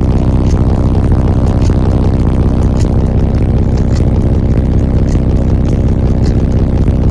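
Truck's car-audio subwoofer wall playing loud, steady bass, heard from inside the cab as a heavy drone.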